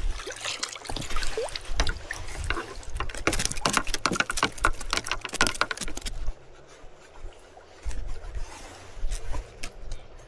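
Water splashing and trickling, a rapid run of small splashes for the first several seconds that then thins out, over a low, gusty rumble.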